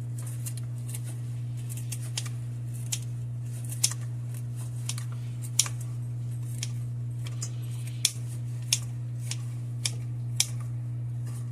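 Kitchen scissors snipping strips of cooked bacon: sharp, irregular snips about once a second, over a steady low hum.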